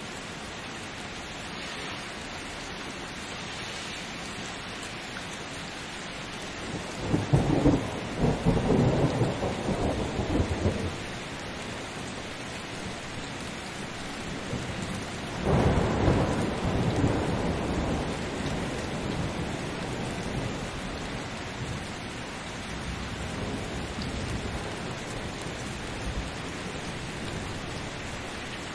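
Thunderstorm: steady rain with two rolls of thunder. The first comes about seven seconds in and lasts some four seconds. The second, the loudest point, starts about halfway through and fades out slowly over several seconds.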